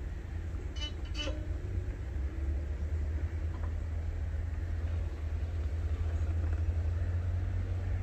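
Outdoor background dominated by a steady low rumble, with two brief high chirps about a second in.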